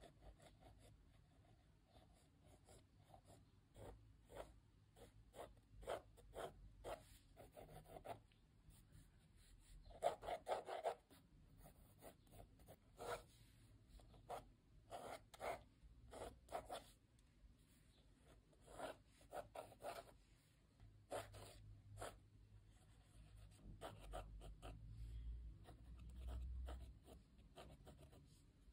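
Faint scratching of a mechanical pencil's 2B lead on sketchbook paper, in many short hatching strokes. The densest and loudest run of quick strokes comes about ten seconds in.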